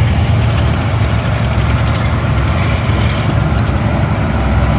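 Heavy military recovery truck's engine running steadily as the truck drives slowly past, its sound mostly low-pitched.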